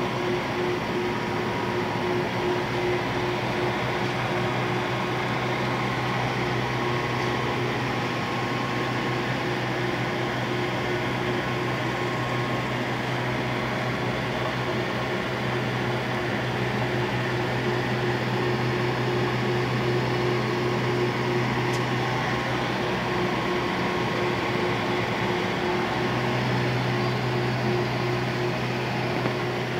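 Clausing Colchester 8050 geared-head engine lathe running: a steady motor and gearbox hum with an even whirr over it. The deepest part of the hum drops away for a few seconds about three quarters through, then comes back.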